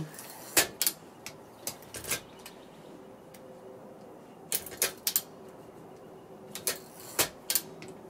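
Irregular sharp metal clicks and clacks from a 1907 Underwood Standard 4 typewriter as its carriage and parts are moved by hand, coming in a few loose clusters.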